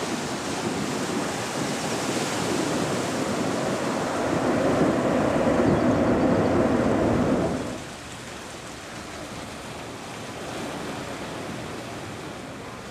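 Deep rushing jet noise of a landing Boeing 747's four engines, swelling to its loudest about five to seven seconds in, then cut off abruptly at an edit, leaving a quieter steady rush of surf and wind.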